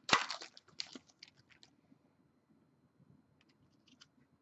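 Trading-card pack wrapper being torn open and crinkled: a sharp rip just after the start, then about a second and a half of fading crackling, then a few faint ticks near the end.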